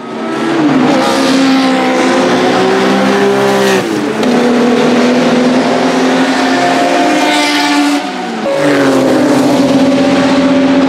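Porsche 935 K3's twin-turbo flat-six race engine accelerating hard, its pitch climbing and then dropping sharply at upshifts about four and eight seconds in, each shift with a brief dip in loudness.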